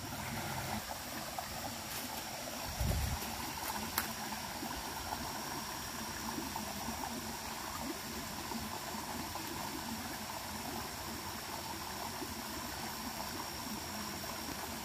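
Small stream running steadily, water trickling over a rocky step into a pool, with a single low thump about three seconds in.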